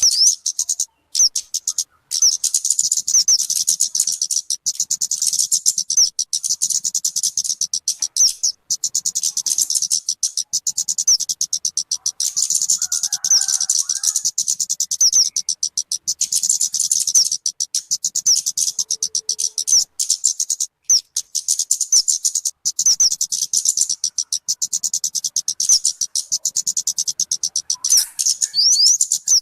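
Talokan (kemade) bird song: a rapid, unbroken high chattering of chirps with quick rising notes and only brief pauses. It is a recording meant for playback to lure wild birds or to tutor caged songbirds.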